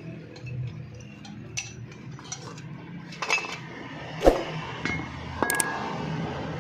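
Small metal parts and hand tools clinking and knocking against each other while a drum brake is taken apart, with one louder knock about four seconds in.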